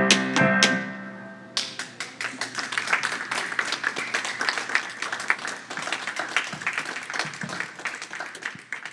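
A live band's final chord rings out over a few drum hits, then cuts off. About a second and a half in, a small audience starts clapping, and the applause thins out near the end.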